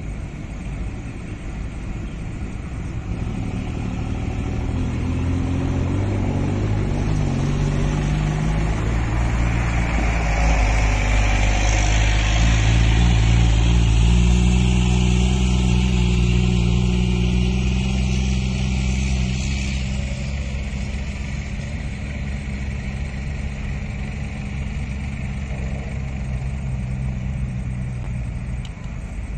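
A motor engine running, growing louder to about halfway through and then slowly fading, with its pitch shifting a few seconds in.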